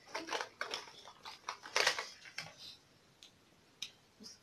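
Small clicks, taps and rustles of makeup bottles and items being handled and sorted in a makeup case, busiest in the first two seconds, then a few isolated ticks.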